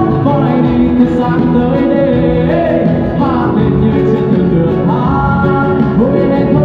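Live band playing a song through a PA system: guitars and keyboard with a singer's voice gliding over the accompaniment.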